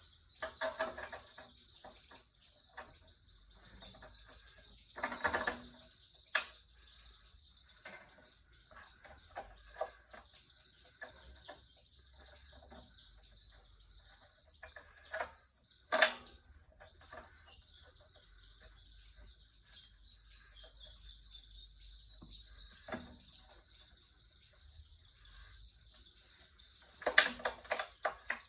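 Scattered metal clinks and knocks of bolts and hand tools while an engine is being bolted onto a tiller frame, the sharpest around the middle and near the end, over a steady high chirring in the background.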